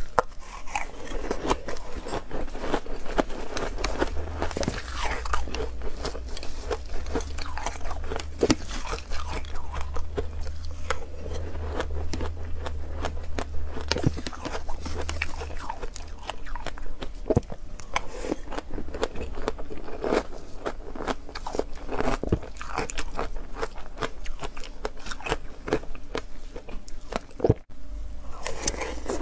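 Close-up biting and chewing of foam ice: dense, irregular crunching crackles all the way through, with a brief break near the end.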